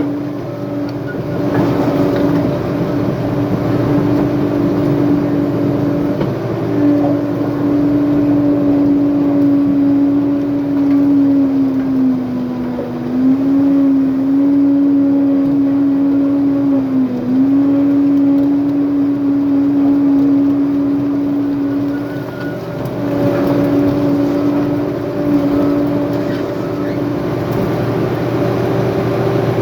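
Heavy diesel engine of an earthmoving machine running steadily at high revs, its pitch sagging briefly a couple of times around the middle as it takes load.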